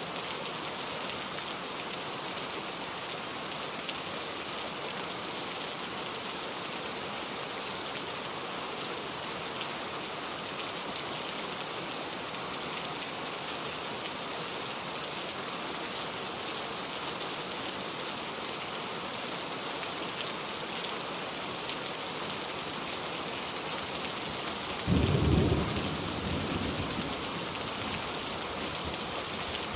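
Steady rain falling in an even hiss. Near the end a rumble of thunder rises suddenly and fades over a couple of seconds.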